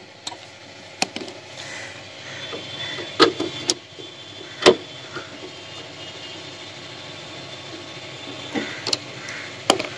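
Hand screwdriver turning screws out of the metal casing of an inverter welding machine: low scraping with a few sharp, irregular clicks, over faint steady background noise.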